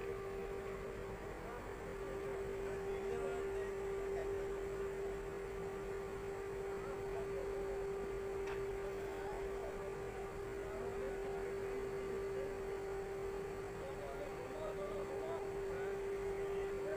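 Steady machinery hum holding one constant pitch, from the mobile crane lifting an overturned transit mixer truck. A single faint click about halfway through.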